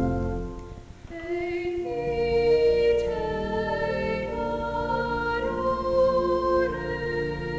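A woman singing a slow classical solo line with vibrato, over organ accompaniment holding steady sustained chords. A loud instrumental passage dies away in the first second and her voice comes in about a second in.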